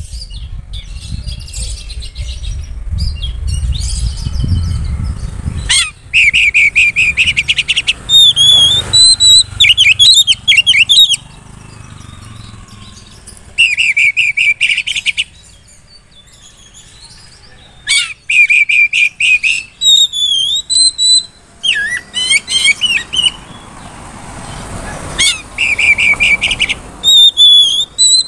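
Oriental magpie-robin singing a loud, varied song: bursts of very rapid trilled notes a second or so long, repeated five times, alternating with clear whistles that swoop down and back up.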